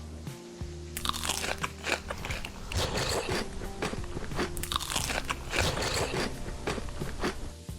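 Close-miked crunching and chewing of crisp food, a dense run of crackly bites starting about a second in, over steady background music.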